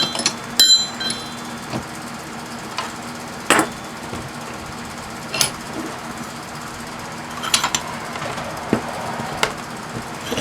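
Metal clinks and knocks as a small AC-adapter transformer is clamped in a bench vise. There are two ringing clinks at the start, then single knocks every couple of seconds.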